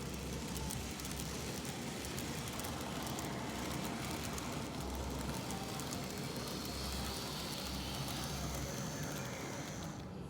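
Train running on track: a steady rumbling whir with fine rapid ticking and crackle throughout.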